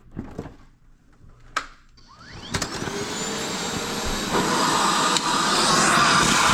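Milwaukee M18 FUEL cordless backpack vacuum's brushless motor switched on about two seconds in, spinning up with a rising whine, then running loud and steady. A few light handling clicks come before it.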